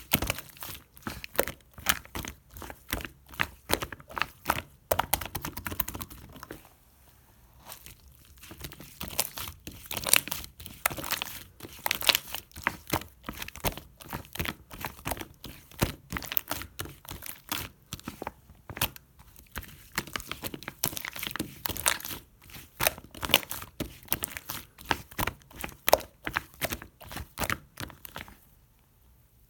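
Clay slime being squished and pressed by hand, a dense run of sticky pops and clicks. It pauses for about two seconds some seven seconds in and stops shortly before the end.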